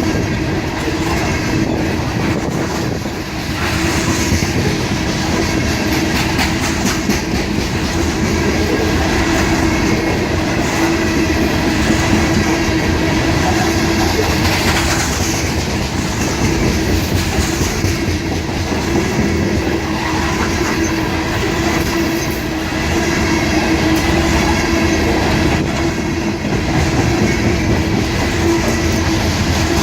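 CSX freight train rolling past, the cars clicking over the rail joints with a steady rumble and a steady hum.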